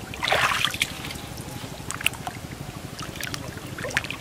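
Water splashing and trickling as hands work in shallow muddy pond water, with a louder splash about half a second in and a few short splashes after.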